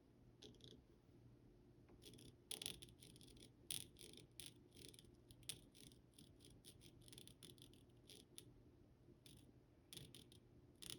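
Faint, irregular light clicks and ticks of small objects being handled close to the microphone, over a low steady hum of room tone.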